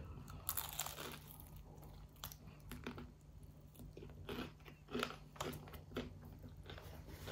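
A mouthful of crispy fried chicken being bitten and chewed close to the microphone, with quiet, irregular crunches of the fried crust and wet mouth sounds.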